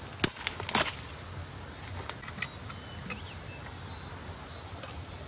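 A few sharp crackles as the lid of an instant-noodle cup is peeled back, then a few scattered soft clicks over a steady outdoor background. A faint bird chirp comes about three seconds in.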